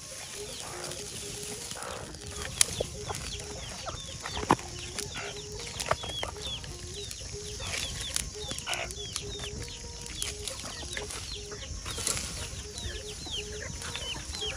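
Dry grass burning over fresh groundnuts to roast them, crackling and popping with sharp snaps over a low rush of flame. Chickens cluck and high chirps repeat throughout.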